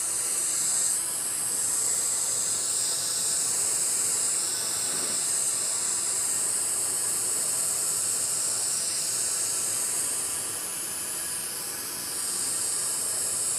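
Propane weed-burner torch hissing steadily as its flame is swept over wet epoxy. The hiss comes from air drawn in at the burner head.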